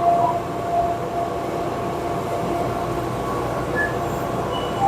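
TurboChef Encore rapid-cook oven running a cook cycle under load: a steady whirring hum from its convection blower and microwave system, with faint steady tones in it and a couple of brief faint higher tones near the end.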